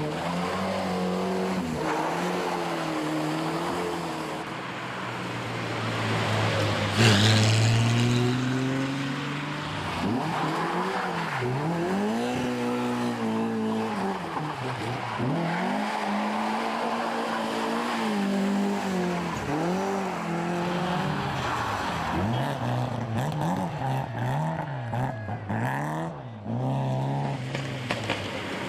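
Historic rally car engines revving hard through a tight corner, the pitch rising and falling in repeated sweeps with throttle lifts and gear changes as car after car goes by. The loudest moment comes about seven seconds in.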